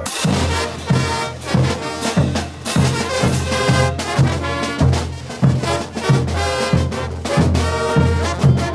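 Bolivian brass band playing: trumpets and trombones over a steady low beat of bass drum and low brass, about two beats a second.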